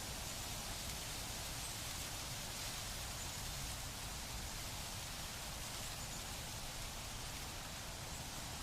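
Wind rustling through plant leaves, a steady hiss with a low rumble underneath.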